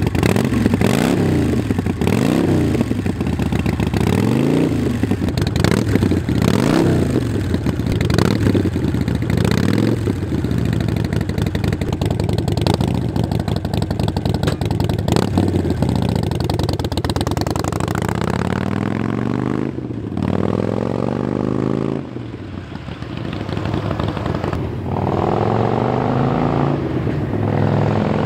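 2007 Harley-Davidson Sportster's air-cooled V-twin running through Vance & Hines Short Shots Staggered exhaust pipes, revved over and over with the pitch sweeping up and falling back. About two-thirds through the sound drops as the bike rides away, then climbs again with more revving.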